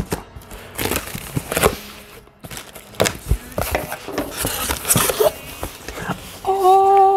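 Knife slitting packing tape on a cardboard shipping box, then the cardboard flaps being pulled open: a run of crackles, rips and knocks. Near the end a man's voice starts a steady hummed or sung note.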